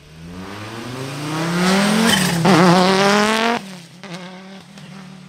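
Race car engine accelerating hard, its note climbing steeply for about two seconds and then wavering at high revs. About three and a half seconds in it drops off abruptly to a lower, steady note that fades away.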